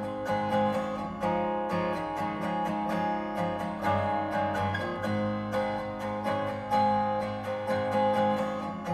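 Strummed acoustic guitar music played through the Mitsubishi Outlander's factory car stereo and stock speakers, before any upgrade, as a baseline for comparison. Guitar only, with chords struck several times a second.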